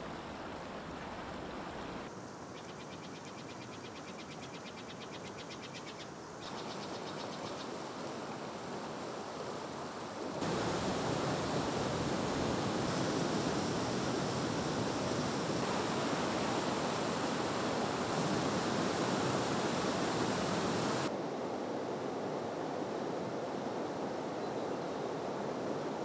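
Waterfall rushing: a steady, full wash of falling water that comes in suddenly about ten seconds in and eases slightly past twenty seconds. Before it, quieter forest ambience, with a high, fast, even trill for a few seconds.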